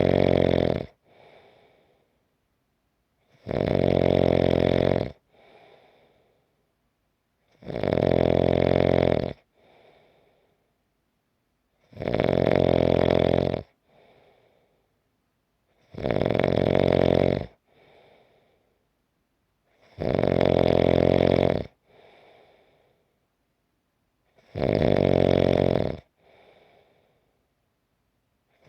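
A sleeping person snoring in a slow, regular rhythm: a loud rasping snore about every four seconds, each followed by a faint short breath out.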